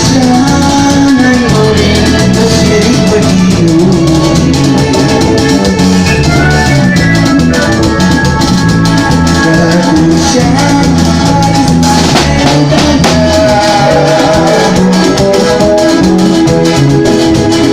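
A band playing Latin American dance music, with drums and percussion under a melody of held notes, loud and unbroken.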